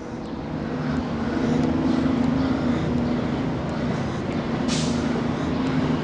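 Street traffic beside the sidewalk: a steady vehicle engine hum that grows louder over the first two seconds, with a short burst of hiss about five seconds in.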